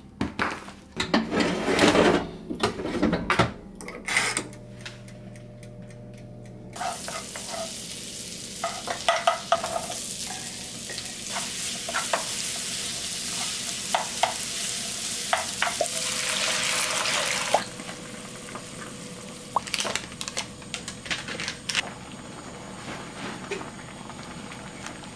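Kitchen cooking sounds. First, wet squelching and clicking as hands rub marinade into chicken in a plastic tray. Then sliced onions sizzle in butter in a frying pan for about ten seconds while a wooden spoon stirs, before the sizzle cuts off abruptly and the spoon goes on stirring and scraping through a bubbling creamy curry sauce.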